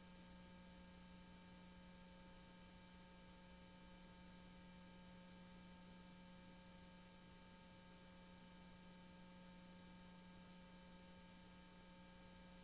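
Near silence: a faint steady hum with hiss, unchanging throughout.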